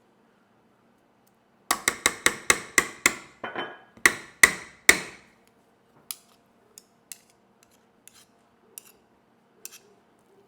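A kitchen utensil rapping hard against cookware, a quick run of about a dozen sharp knocks at roughly four a second, then a few lighter scattered clicks, as in knocking yogurt off a spoon into a pot of potatoes.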